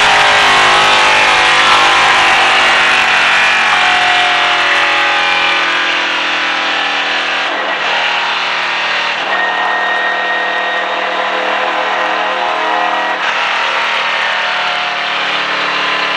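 Stock race car's engine running hard at speed, heard from inside the cockpit. Its pitch falls over the first few seconds, then holds steady.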